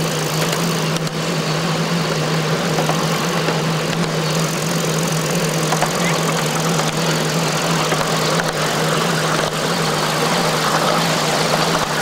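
Ridable-scale live-steam Shay locomotive running along the track, a continuous mechanical din under a steady low hum.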